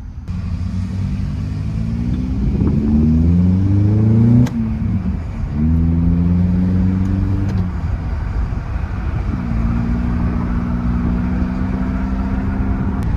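Honda K24A4 2.4-litre four-cylinder heard from inside the car through an open short-ram intake and HKS muffler, revs climbing under acceleration. About four and a half seconds in a sharp click comes as the revs drop; the revs then climb again before settling into a steady cruising hum.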